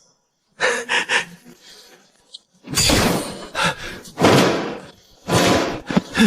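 Four loud, heavy slamming thuds about a second or so apart, sound effects of heavy objects landing.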